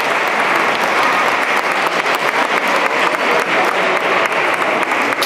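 Crowd applauding, with many hands clapping steadily and without a break.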